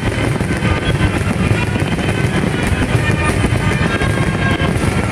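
Aerial fireworks shells bursting in a dense, unbroken barrage, with music playing over it.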